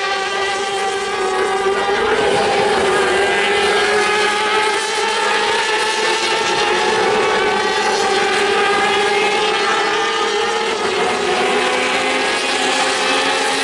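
Several race motorcycle engines running at high revs together, their pitches drifting up and down as the bikes accelerate, change gear and brake around the circuit.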